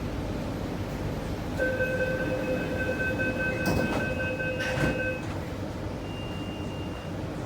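Steady rumble inside a CRRC Changchun EMU metro train. From about a second and a half in, a steady electronic tone of several pitches sounds for about three and a half seconds, with two sharp knocks near its end.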